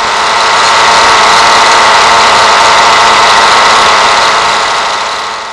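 Taplin Twin 15 cc two-cylinder model diesel engine running steadily on a test stand, a loud, dense buzz. It swells up at the start and fades away near the end.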